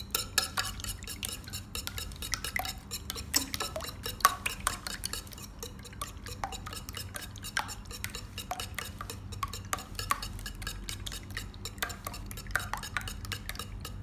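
Three raw eggs being beaten by hand in a bowl: a utensil clicks and taps rapidly and continuously against the bowl.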